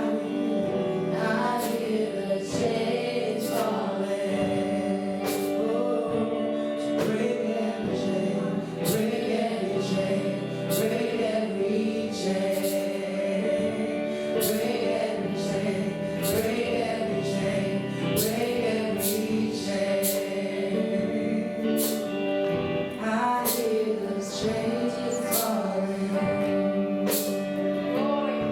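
Gospel worship music: singers with a band, over a steady beat of drum and cymbal hits.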